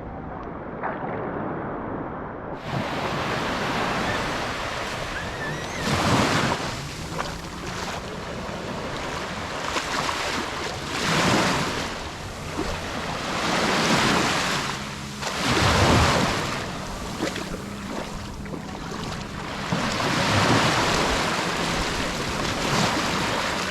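Sea waves breaking and washing up on a beach, swelling every few seconds.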